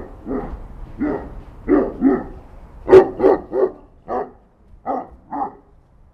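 A dog barking repeatedly, about ten short barks at an uneven pace, the loudest near the middle, falling silent a little before the end.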